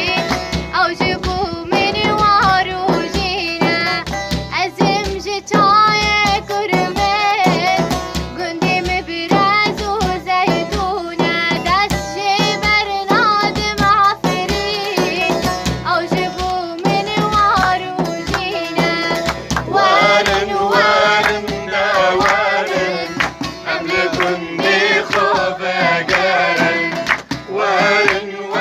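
A girl singing a sad Kurdish folk song in a wavering, ornamented melody over instrumental backing with drum rhythm.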